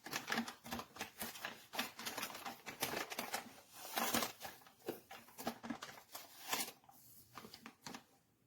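Rapid, irregular clicks and rustling, like objects being handled at close range, thinning out after about seven seconds.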